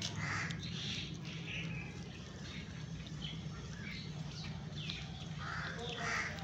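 Kitten chewing and gnawing on a raw chicken head: a run of short crunching, wet bites, about two a second, over a steady low rumble.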